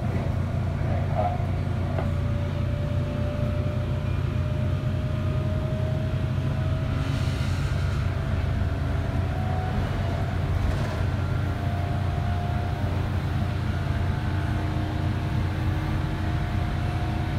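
Interior running noise of a 415 series electric multiple unit, heard inside the passenger carriage: a steady heavy low rumble, with a thin whine from the traction motors and gearing that rises slowly in pitch as the train gathers speed.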